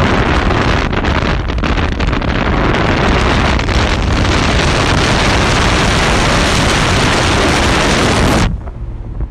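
Heavy wind rushing over the microphone as it is held out over a moving, open-topped Lamborghini Aventador SV Roadster, a loud, even roar that cuts off abruptly near the end.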